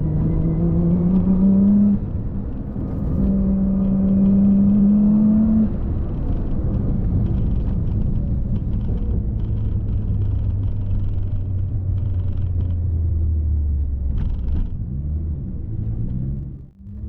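Car engine and road noise while driving: the engine pitch rises twice as it accelerates, then settles into a steady, lower drone while cruising.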